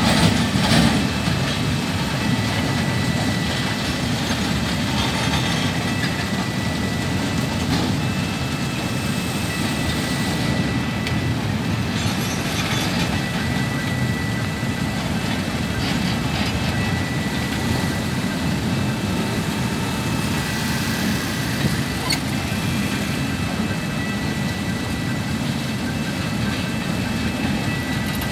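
Container freight train rolling across a level crossing: a steady low rumble of wheels and flatcars on the rails, with a faint high tone that comes and goes every couple of seconds.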